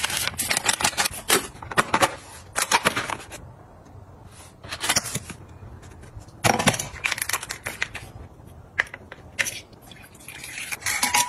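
Plastic and foil drink sachets crinkling and rustling as they are handled and laid down, in several bursts of crackle with short pauses between. Near the end, water pours into a glass mug.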